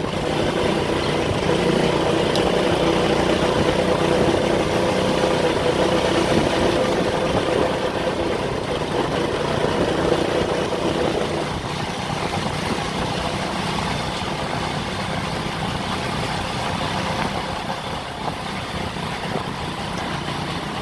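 Small motorbike engines running at a steady cruising speed, with road and wind noise, heard from a moving motorbike. The engine drone eases a little about halfway through.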